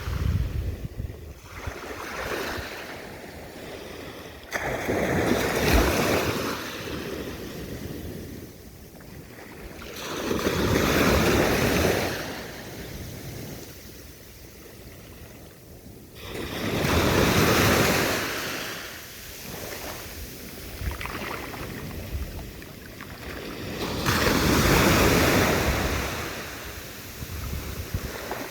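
Sea waves breaking and washing back in slow swells, four surges about six seconds apart, each rising to a hiss and fading away.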